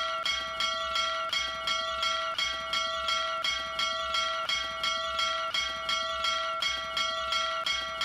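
Small brass bell rung rapidly by its clapper rope, about three strikes a second, its tone ringing on between strikes.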